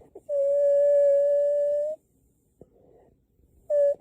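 A dog whining: one long, steady, high-pitched whine, then a short one near the end.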